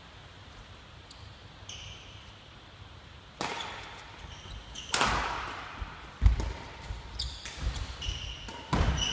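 Badminton rally: three sharp racket strikes on the shuttlecock, the first about three and a half seconds in and the last near the end, each echoing around the large hall. In between come short squeaks of shoes on the wooden court and low thuds of footsteps, the heaviest landing just after the middle being the loudest sound.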